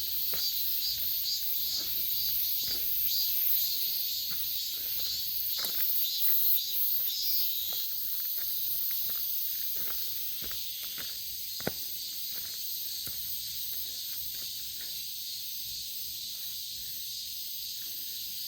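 Footsteps walking at an even pace on a forest path, over a steady, high-pitched chorus of insects pulsing continuously. A single sharp click stands out about two-thirds of the way through.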